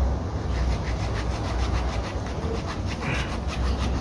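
Knife cutting through the carcass of a spiny-tailed iguana on a wooden block, with repeated short rubbing strokes over a steady low rumble.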